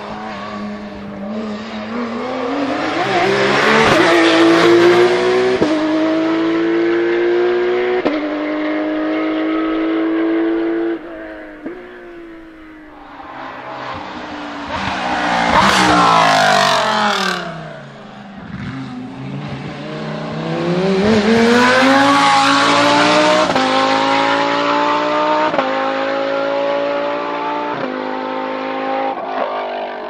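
Race-car engines at full throttle on a hillclimb. First a Porsche 911 Cup car's flat-six accelerates hard through several quick upshifts. About halfway through, a Lamborghini Gallardo race car's V10 passes close, its pitch rising then falling, then a car accelerates away through more upshifts.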